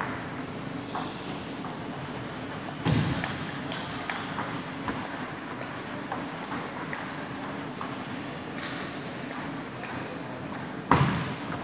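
Table tennis ball clicking off the bats and table, in a rally and then in light taps, with two louder thuds about three seconds in and near the end.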